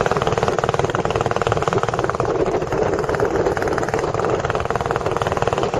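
Engine of a long-tail tour boat running steadily under way, a fast, even chugging with no change in pace.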